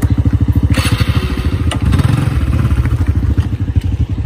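Small motorcycle engine running with a fast, even pulsing beat. A brief rattle comes about a second in, and the engine note swells for a moment around two seconds in.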